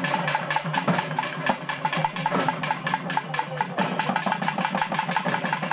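Several barrel drums beaten with sticks, playing a fast, steady rhythm of many strokes a second.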